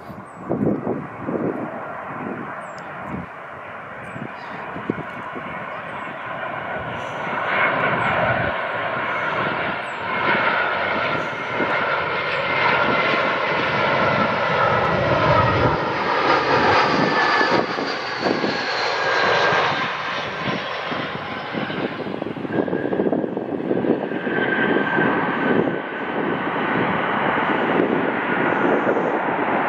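Airbus A320 jet airliner landing: its engine rumble and whine build as it comes in low and passes, with whining tones falling in pitch as it moves away, then the engine noise rises again near the end as it rolls down the runway. Wind buffets the microphone at the start.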